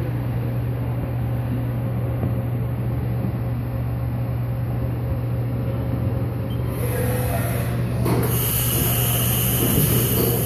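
Haas CNC vertical mill running with a steady hum. About seven seconds in, a hissing spray starts and grows louder a second later as the flood coolant comes on.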